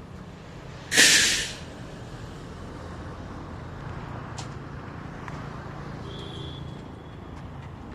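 A sudden loud hiss about a second in, lasting about half a second, over a steady low rumble; a few faint ticks follow later.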